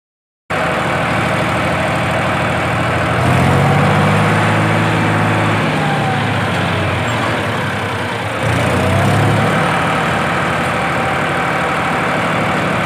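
Diesel farm tractor engine working hard as it pulls a trolley loaded with earth up a dirt ramp. Its pitch rises and it gets louder twice, in the middle and again a few seconds later. The sound starts suddenly about half a second in.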